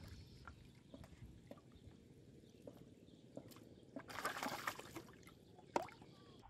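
Light water sloshing and small splashes with scattered soft knocks, a brief louder splash about four seconds in and a single sharp knock near the end.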